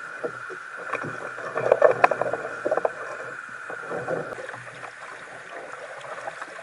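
Knocks, clunks and rustling as a large fish and gear are handled aboard a plastic fishing kayak, loudest about two seconds in, over a steady high hum.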